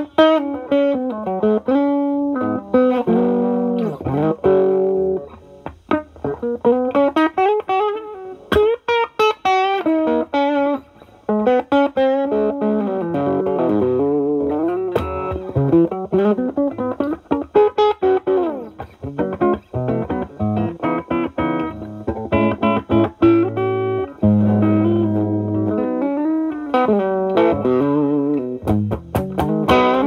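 Gibson SG electric guitar with alnico humbuckers, overdriven through an Ibanez TS9DX Turbo Tube Screamer in HOT mode into a Marshall Valvestate amp's clean channel. It plays improvised lead lines with string bends, moving to fuller chords about 24 seconds in.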